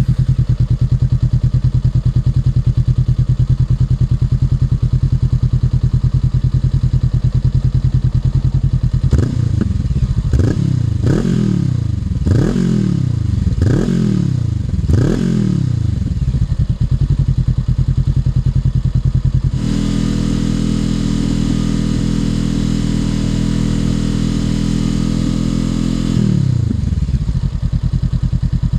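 Honda NX500 parallel-twin engine through a Black Widow BC20V slip-on exhaust, idling, then blipped about six times in quick succession. It is then held at a steady higher rpm for several seconds before dropping back to idle near the end.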